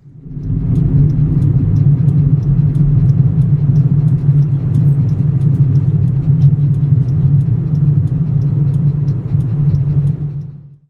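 A loud, steady low rumble, fading in over the first second and out near the end, with faint scattered clicks above it.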